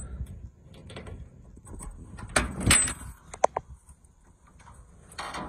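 The trunk lid of a 1966 Cadillac Coupe DeVille being handled: a couple of sharp metal clunks about halfway in, then a brief squeak and another knock near the end.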